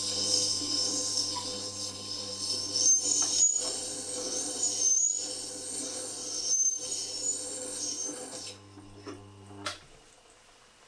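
Tormek T8 sharpener's motor running with a steady hum while a chisel bevel is ground on the diamond wheel, a continuous hissing scrape, broken by a few short gaps. The motor stops near the end.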